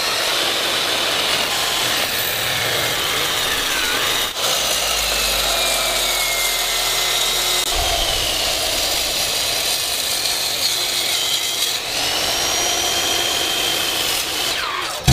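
A power tool cutting, a saw or grinder: a steady loud grinding noise with a whine that drifts up and down in pitch as it works through the material. There is a deeper rumble for a few seconds about midway, and the sound stops abruptly at the end.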